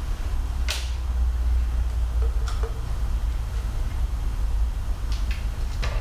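A few sharp clicks and taps from a test light and wiring being handled in a motorcycle's open headlight bucket, over a steady low hum.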